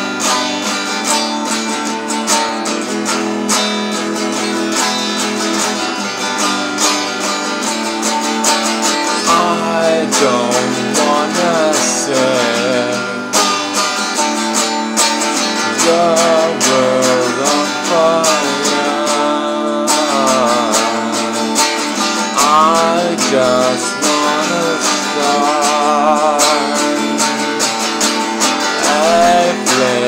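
A guitar, likely acoustic, strummed steadily. A man's singing voice with vibrato comes in about nine seconds in and goes on over the guitar.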